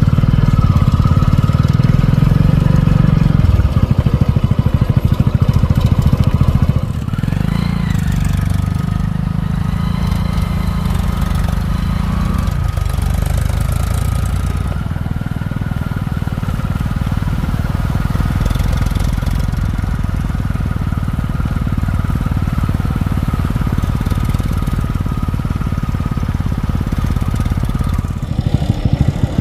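Eicher 380 tractor's diesel engine running as the tractor drives along a dirt track. It is loudest for the first seven seconds or so, then runs steadily.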